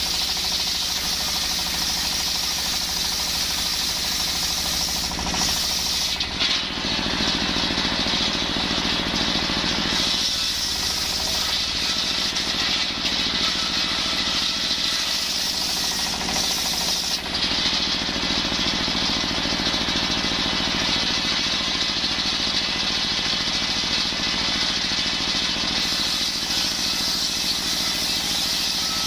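Circular sawbench driven by a stationary diesel engine, ripping coconut-wood planks: a steady high-pitched saw noise over the engine's low, even running. The saw's sound shifts a little several times as the wood is pushed through the blade.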